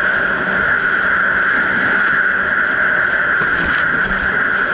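Jet ski running at a steady speed, its engine drone constant and unchanging over the rush of water.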